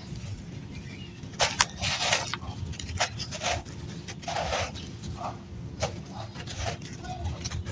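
Dry, gritty red dirt crunching: a string of irregular crisp crunches starting about a second and a half in.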